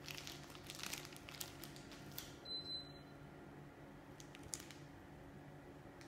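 Rustling and clicking of a hand handling an air-conditioner remote control, then a single short high beep about two and a half seconds in: the Daikin FTNE35MV14 mini-split indoor unit acknowledging a command from the remote. A low steady hum runs underneath.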